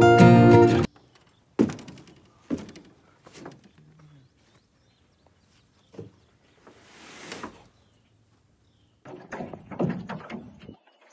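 Acoustic guitar music that stops about a second in, then scattered knocks and thumps of gear against a small fishing boat, with a brief rushing swell in the middle and a busier patch of knocks near the end.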